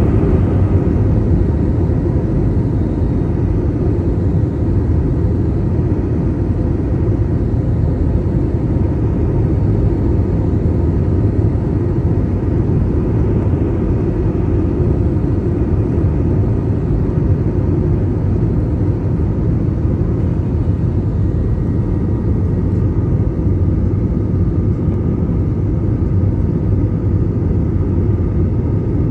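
Jet airliner cabin noise heard from a window seat over the wing: the steady low rumble of the turbofan engines and the airflow past the fuselage, with a faint steady whine above it.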